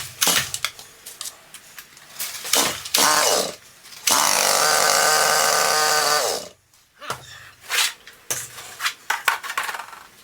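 Chainsaw being pull-started again and again, sputtering, then catching about four seconds in and running for a couple of seconds before it falls in pitch and dies. It will not keep running because its tank is nearly out of fuel.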